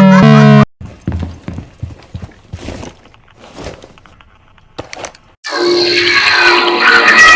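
Heavily distorted, pitch-shifted cartoon sound-effect clips. A loud sound falling in pitch breaks off under a second in, followed by quiet scattered clicks and rattles, then a loud, harsh burst with steady tones from about five and a half seconds in.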